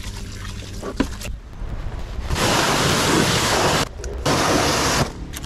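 Compressed air hissing out of a mountain-bike suspension air spring through its Schrader valve as it is let down from about 150 psi. The air is released in two loud bursts with a short break between them.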